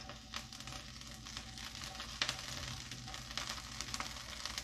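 Ginger and sliced shallot sizzling quietly in hot oil in a nonstick wok, with light scrapes and taps of a spatula stirring them; a sharper tap about two seconds in.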